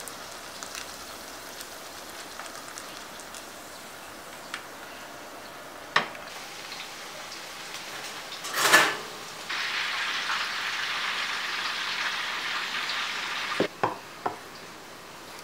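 Oil sizzling steadily as breaded oyster mushrooms deep-fry, with a sharp click about six seconds in and a short loud rush of noise a little later. The sizzle then runs louder for about four seconds, and a few clicks come near the end.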